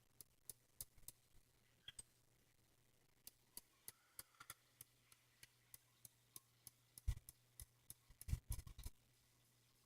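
Hampton Bay ceiling fan running on high, with a faint steady motor hum and irregular light clicks, about three a second, and a few louder knocks near the end.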